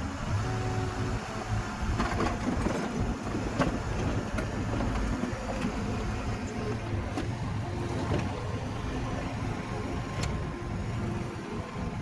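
Engine of a heavy earthmoving machine running steadily, with a few sharp knocks or clanks.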